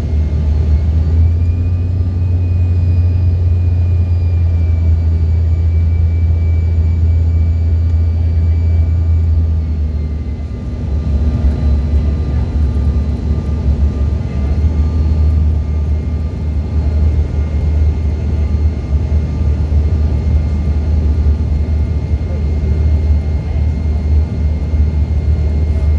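Steady loud cabin drone of a jet airliner in flight, from engine and airflow noise, with a thin high engine whine over it. About ten seconds in the drone dips briefly and the whine tones shift slightly in pitch, then it carries on steadily.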